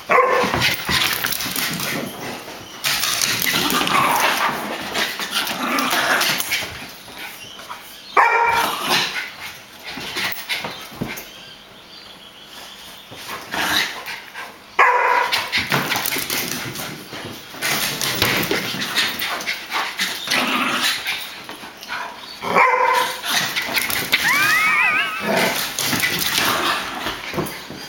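A Jack Russell terrier and a golden retriever play-fighting: loud sharp barks every several seconds, with rough growling and scuffling between them, and a few short high whines near the end.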